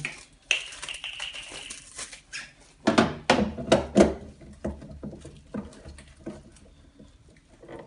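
Plastic clicks and knocks as a refrigerator water filter cartridge is pushed and twisted into its housing inside the fridge, with a high squeak about half a second in and a cluster of loud knocks about three seconds in.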